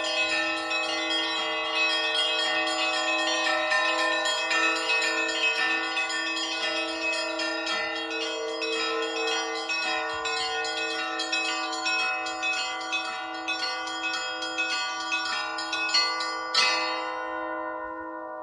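Russian Orthodox church bells rung by hand for the festive Easter peal, heard from up in the bell tower. A quick, dense pattern of small bells rings over the steadily struck deeper bells. Near the end one loud final stroke sounds, and the bells are left ringing out and fading.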